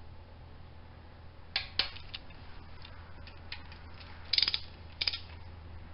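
Hand socket ratchet with a long extension clicking in several short bursts as bolts on the front of an LS 5.3 engine are run in, plausibly the water pump bolts.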